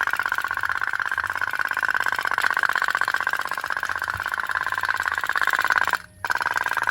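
Toy pop-pop boat (kapal otok-otok) running, its candle-heated tin boiler giving a rapid, even putt-putt popping. The popping cuts out briefly about six seconds in, then picks up again.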